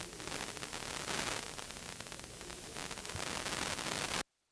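Steady hiss of recording noise with no speech, which cuts off abruptly to dead silence near the end.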